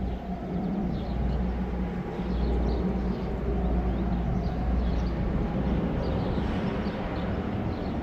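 Outdoor background: a steady low rumble with a few faint, short bird chirps over it.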